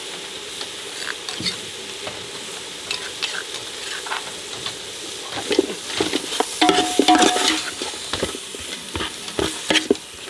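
Chicken pieces and chili-herb paste sizzling in a metal pot, with a metal ladle stirring and scraping against the pot. The stirring clatter grows louder about halfway through.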